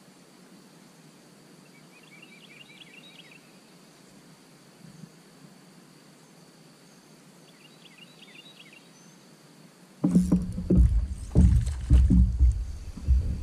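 Quiet outdoor background in which a songbird sings a short run of quick high chirps twice. About ten seconds in, loud irregular low rumbling begins suddenly and lasts about three seconds.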